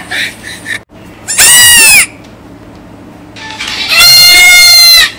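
Baby goat bleating loudly twice in a high-pitched voice: a short call about a second and a half in, then a longer one near the end.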